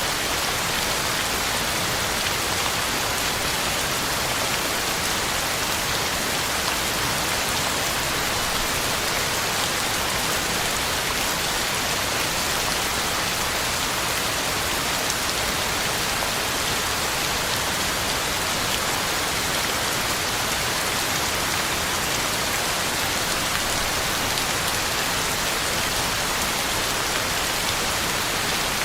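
Heavy rain falling steadily, a constant hiss of drops on the ground and on leaves with faint scattered patters.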